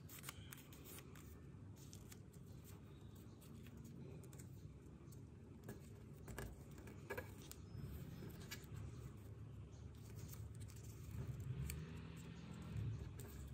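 Origami paper being folded and creased by hand: soft rustling with scattered small crackles of the sheet.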